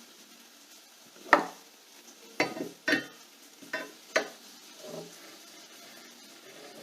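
Metal clinks and knocks as pliers work a nut tight on a threaded steel rod, about six separate strikes, the loudest a little over a second in.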